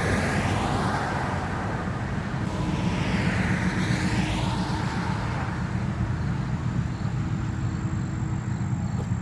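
Highway traffic passing close by: a steady low rumble, with a vehicle swishing past near the start and another about three and a half seconds in.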